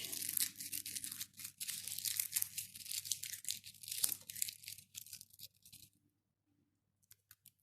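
Bay leaves being crushed by hand, a dense crackling and rustling that stops about six seconds in, followed by a few faint ticks.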